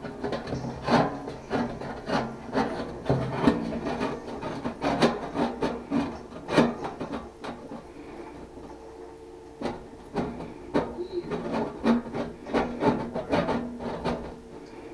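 Hand work on parts during a repair: irregular knocks, clicks and scraping as pieces are handled and fitted, with a short lull a little past halfway.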